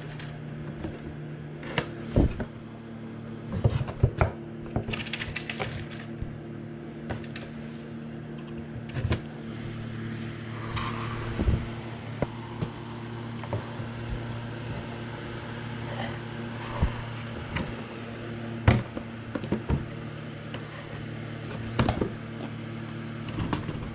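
Honeywell HT-900 TurboForce air circulator fan running with a steady low hum, its pitch dropping slightly about nine seconds in, with a scattering of sharp clicks and knocks over it.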